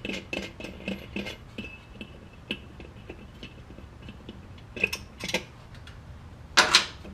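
Light metal clinks and taps as the air cleaner is taken off the carburetor, with a few louder clanks near the end.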